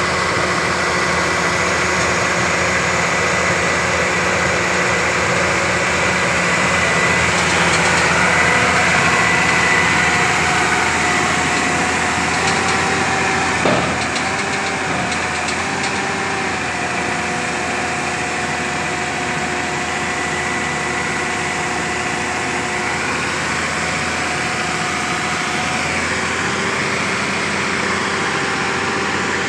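Diesel engine of heavy construction machinery running steadily, with a steady high whine over it. A short knock comes a little before halfway, and the tones dip briefly just after it.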